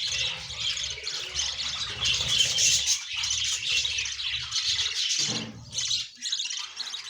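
A flock of budgerigars chattering and squawking continuously.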